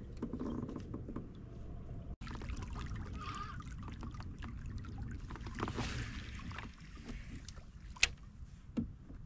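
Water splashing and lapping around a small boat, with a sharp click about eight seconds in.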